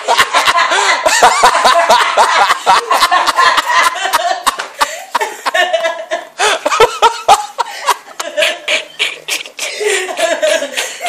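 People laughing hard and loud in repeated bursts, with many short, sharp knocks mixed in.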